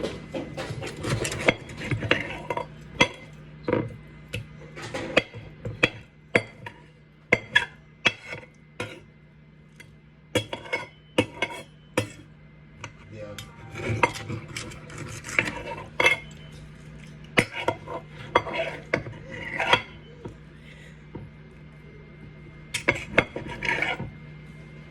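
Kitchen utensils and dishes clinking and knocking in irregular sharp clacks during cooking prep, over a steady low hum.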